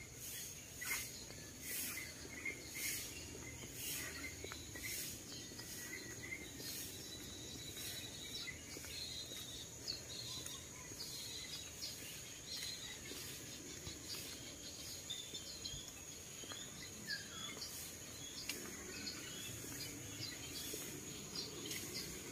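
Faint outdoor insect and bird chorus: a steady high-pitched insect drone with a pulsing insect call about once a second that weakens after the first half, and scattered short bird chirps.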